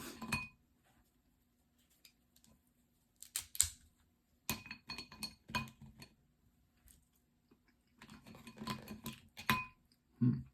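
Cutlery and dishes clinking and clattering in short clusters of sharp taps, with quiet gaps between them, as a meal is started.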